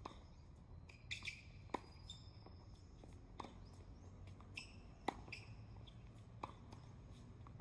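Tennis ball being hit back and forth in a rally: five sharp racket pocks, evenly spaced about every second and a half. Birds chirp faintly in between.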